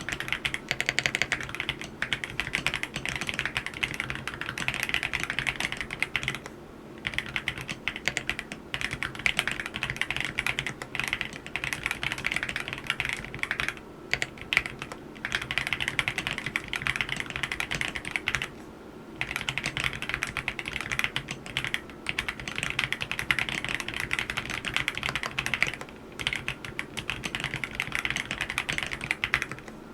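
Steady fast typing on an AULA F87 mechanical keyboard with yellow switches: a dense stream of keystroke clacks, broken by short pauses every five to seven seconds.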